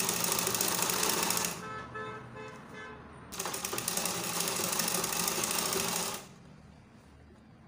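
Black treadle sewing machine stitching in two runs, a short burst at the start and a longer one from about three seconds in to about six seconds, stopping in between, as the stretched elastic waistband is top-stitched.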